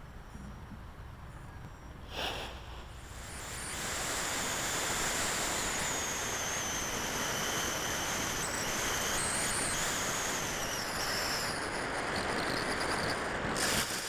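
Twin electric ducted fans of a FreeWing A-10 RC jet running: a high whine over a rushing noise that grows louder about four seconds in and holds.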